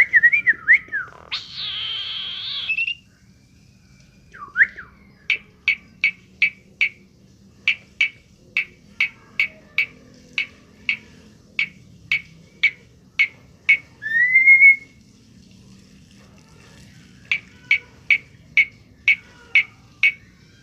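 Pet talking bird whistling and calling: a few quick whistled glides, a short harsh rasping call, then long runs of short sharp chirps at about two a second, broken by one rising whistle about two-thirds of the way through.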